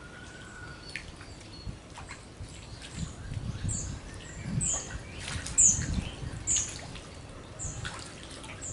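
A small bird chirping again and again, short high calls roughly every half second to a second, over a low rumble.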